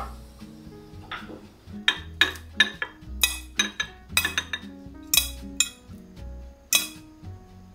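Kitchenware being handled: a run of sharp, irregular clinks and knocks of dishes and utensils, starting about two seconds in and dying out near the end, over soft background music.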